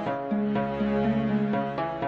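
Background music: a calm melody of sustained pitched notes changing about every half second.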